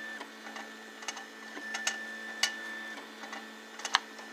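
3D printer running a print: its stepper motors give a steady hum with a thin high whine, broken by irregular sharp clicks, the loudest one near the end.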